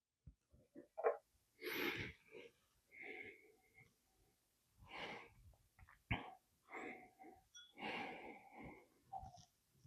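A person's faint breaths and sniffs, a few seconds apart, with mouth sounds and a couple of light clicks, while clearing the palate between sips of bourbon.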